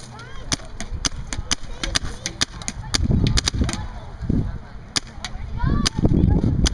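Empire Axe electropneumatic paintball marker firing on compressed air. Sharp single shots come in uneven strings, at times three or four a second, with short pauses between bursts.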